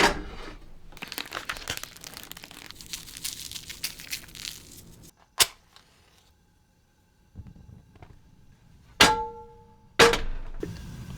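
Food-prep handling: crinkling and tearing, as of packaging being opened, for about five seconds, then a sharp click. Near the end come two sharp knocks, each with a brief ringing tone, and then a steady low hiss.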